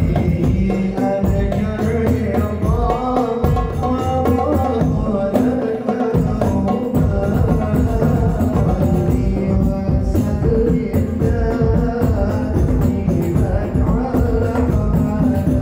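Hadrah ensemble of rebana frame drums and large bass drums playing a dense, steady rhythm, with a melody sung over it in a sholawat.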